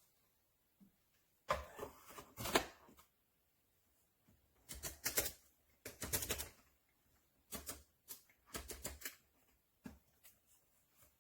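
Short bursts of clicking and clattering, about six separate groups with quiet gaps between, like hard plastic parts or beans being handled.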